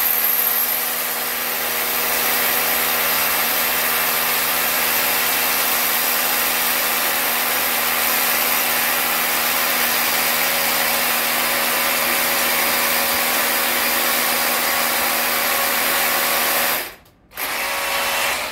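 Cordless SDS+ rotary hammer drilling into a concrete kerbstone with a cross-head carbide masonry bit, running steadily as it bores the hole to the bit's full flute depth in one pass. It cuts out briefly near the end, then runs again for about a second.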